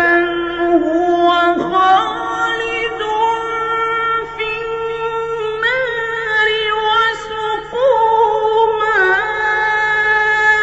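A male voice chanting Quranic recitation, drawing out long held notes with ornamented melodic turns.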